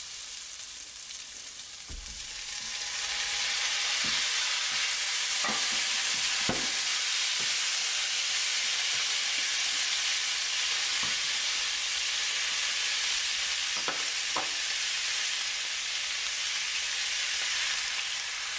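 Strips of skirt steak and sliced vegetables sizzling in hot oil in a nonstick wok. The sizzle swells about two to three seconds in as the beef goes into the pan, with a few soft knocks from a spatula stirring.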